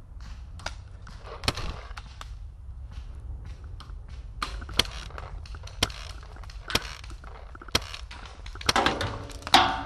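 Paintball markers firing: sharp single pops about once a second, with a quicker run of shots near the end.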